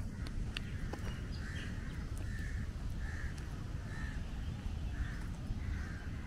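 A crow cawing over and over, about once a second, over a steady low rumble.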